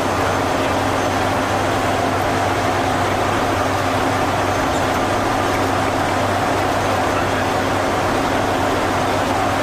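Airbus A400M's four turboprop engines and propellers running at a steady drone, with a constant low hum and higher whine over a broad rushing noise.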